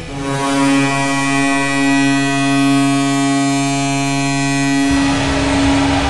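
Springfield Thunderbirds' arena goal horn sounding one long, loud, steady blast. Near the end its lower notes cut off and a low rumbling noise comes in while one tone of the horn carries on.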